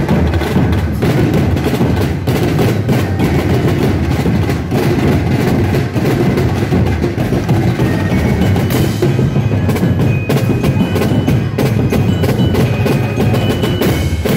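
Street-dance percussion ensemble playing a dense, fast beat of drums and struck wooden and metal percussion. A few steady high tones come in over it about nine seconds in.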